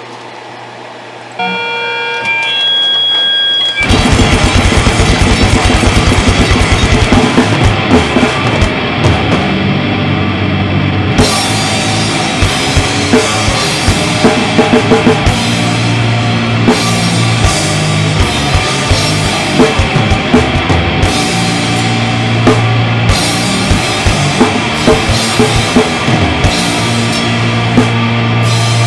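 Acoustic drum kit played fast in grindcore blast beats, kick, snare and cymbals struck in dense rapid strokes. The drumming starts about four seconds in, after a few seconds of steady held tones.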